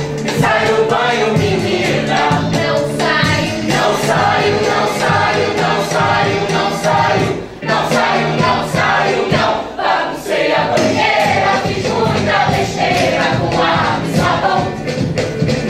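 A stage musical number: the cast singing together as a chorus over a live band of percussion, bass and guitar, with a steady beat.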